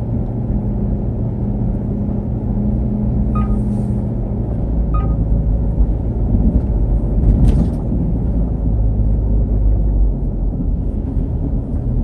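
Steady low rumble of a car driving along a road: engine and tyre noise, with a few short faint clicks.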